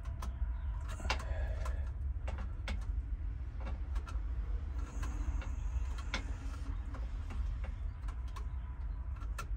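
Scattered small clicks and taps of hands working stripped wires into a screw-terminal plug on a gauge control box and tightening them down, over a steady low rumble.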